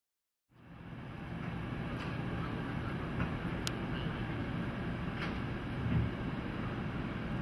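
Steady low rumble of rail yard ambience, fading in about half a second in, with a few faint ticks.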